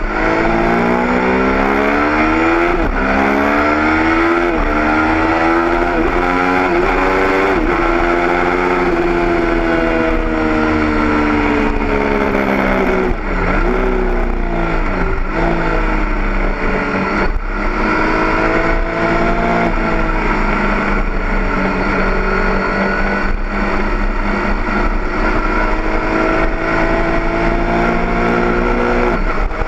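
Triumph Daytona 675's three-cylinder engine at track speed, its pitch climbing through the revs and falling back over and over with throttle, gear changes and braking, with several sharp drops. Air rushes steadily over the microphone underneath.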